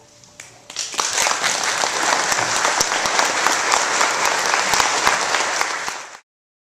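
Audience applause: many hands clapping, beginning about a second in after a quiet moment, then cut off abruptly near the end.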